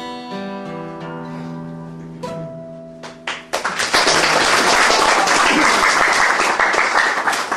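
Acoustic guitar playing the closing chords of a song, the last chord ringing out. About halfway through, audience applause breaks out and becomes the loudest sound.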